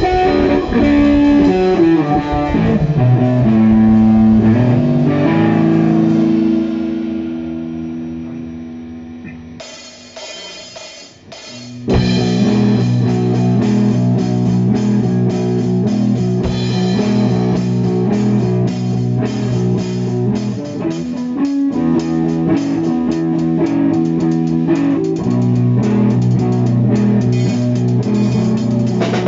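Rock-style music with guitar, bass and drums. It fades down about a third of the way through, then starts again abruptly with a steady beat.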